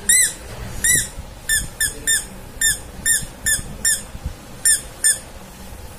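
Squeaky dog toy squeezed by hand about eleven times in quick succession, each a short high squeak that rises and falls in pitch, stopping about five seconds in.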